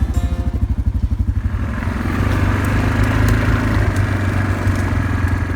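Four-wheeler (ATV) engine running with a fast, even firing pulse and a low hum; from about a second and a half in, a broader rushing noise joins it.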